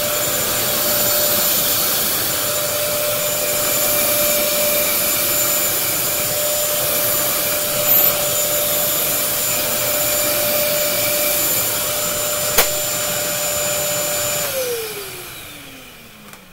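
Bissell DeepClean Premier carpet cleaner's suction motor running with a steady whine. Near the end it gives a sharp click, then it is switched off and winds down, its pitch falling.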